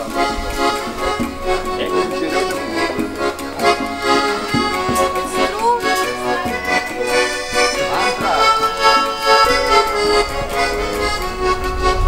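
Accordion music with sustained chords.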